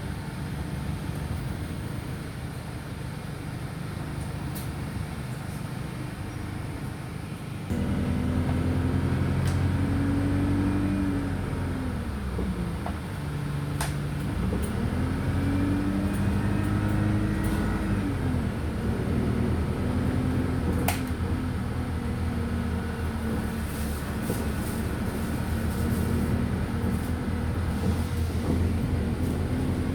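Wright Streetlite DF single-decker bus heard from inside: the engine ticks over quietly, then about eight seconds in it pulls away, its pitch climbing and falling back twice as it changes gear before settling into steady running. A few sharp rattles sound along the way.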